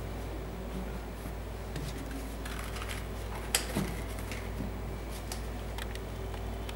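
Hands handling a leather high-top sneaker and its laces: light rustles and small clicks, with one sharper click about halfway through, over a steady low hum.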